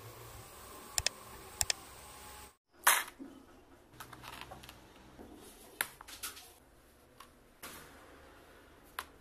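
A few sharp clicks from wooden cabinet doors being worked, then a short clatter as a handful of small clear-plastic shelf support pins with metal pegs lands on a table, followed by light scattered clicks and taps as they are handled.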